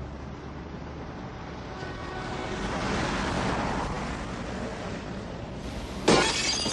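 Street noise swells and fades as a vehicle passes. About six seconds in comes one loud bang as a fist strikes a panelled front door, with a short ring after it.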